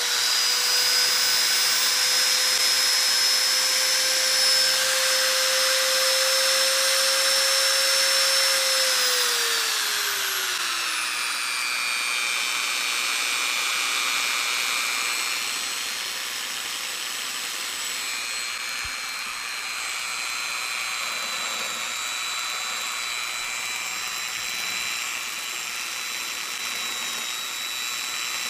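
Grizzly T10745 variable-speed detail belt sander running free with no workpiece, a steady motor whine. Between about nine and twelve seconds in, its pitch falls as it slows to a lower speed, and it then runs steadily and a little quieter.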